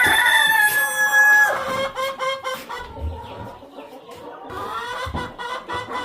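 Hens clucking and calling, with one loud, long, steady call during the first second and a half and shorter calls after it.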